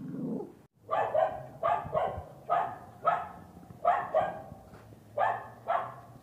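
A short growl, then a dog barking sharply and fairly high about eleven times, mostly in quick pairs, during play.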